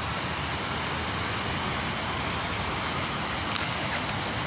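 Steady background noise of an open city square: an even hiss and rumble with no distinct events.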